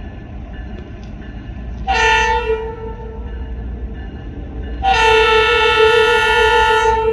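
Diesel locomotive air horn sounding twice, a short blast about two seconds in and then a longer one held for a couple of seconds, over a low idling rumble.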